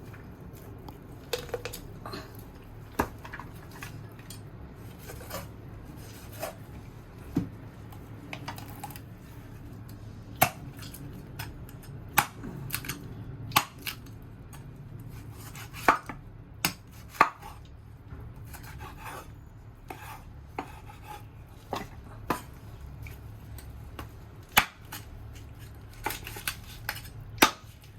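Knife chopping rooster meat and bone on a cutting board: irregular single sharp strikes, a second or so apart, some much louder than others.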